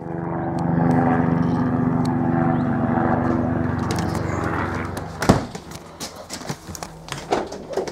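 Airbus H125 helicopter passing, a steady drone of rotor and turbine that builds in the first second and fades about five seconds in. Then come a sharp knock and scattered clicks and rattles of the camera being handled.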